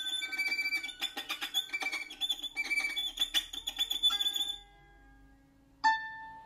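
Freely improvised experimental music of instruments and objects: held whistle-like tones over rapid clicking and rattling, which drop away about four and a half seconds in. Near the end a single sharp struck note rings out and slowly fades.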